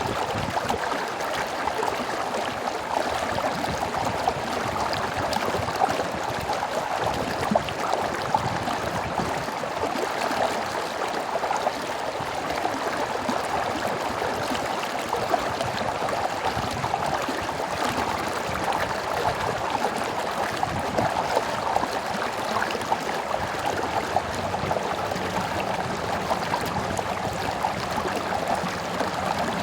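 Stream water flowing and babbling steadily, an even rushing with small splashes and gurgles throughout.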